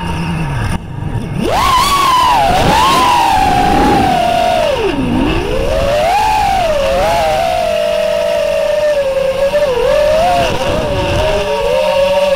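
FPV racing quadcopter's brushless motors whining, the pitch rising and falling with the throttle. It dips briefly just under a second in and then surges back up. Near the end it settles into a steadier whine.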